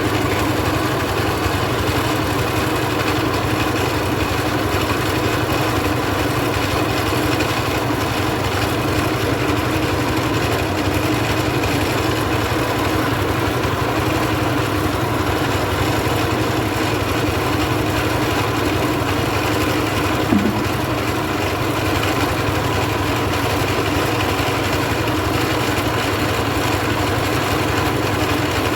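Mobile rice milling machine running steadily, its engine and milling machinery making a dense, even mechanical drone. A brief sharp squeak-like sound about two-thirds of the way through.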